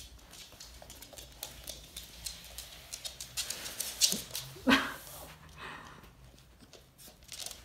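Miniature schnauzer stretching after waking, making two short vocal sounds a little past the middle, amid light rustling and clicks of the dog moving.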